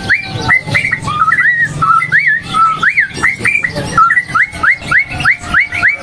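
Caged bulbul singing: a rapid, loud run of clear whistled notes, about three a second, many of them quick upward slurs.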